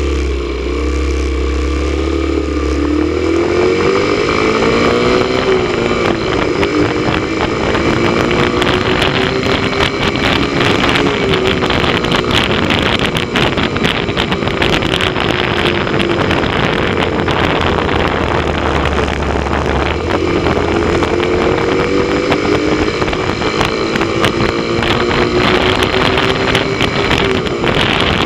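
Motorcycle engine running at road speed, its pitch climbing and falling back twice with the throttle, under heavy wind noise on the microphone.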